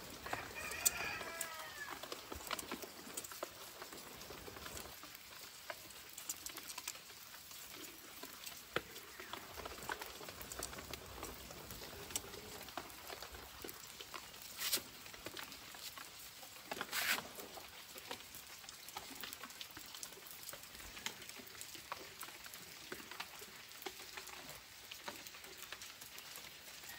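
Wood fire crackling under pig's liver grilling on a wire rack, with a faint steady sizzle and many small pops, and two sharper cracks in the second half. A short animal call with falling pitch sounds near the start.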